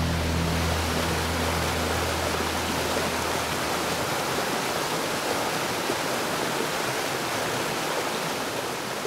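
Steady rush of a flooded whitewater creek's rapids, with the last low chord of the music dying away in the first couple of seconds; the rush begins to fade near the end.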